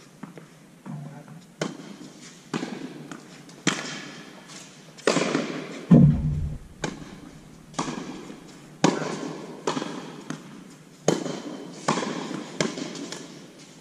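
Tennis balls struck by racquets, one strung with Signum Pro Firestorm string, and bouncing on a hard court: sharp pops about once a second, each echoing in a large indoor tennis hall. One louder hit with a low thud comes about six seconds in.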